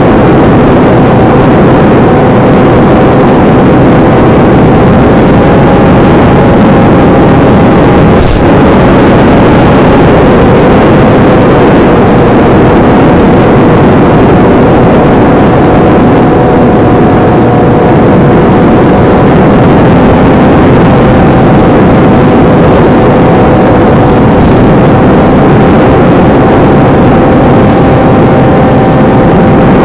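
Versa Wing RC flying wing in flight: its electric motor and propeller hum at a steady, slightly wavering pitch under a loud, constant rush of wind noise, with one brief click about eight seconds in.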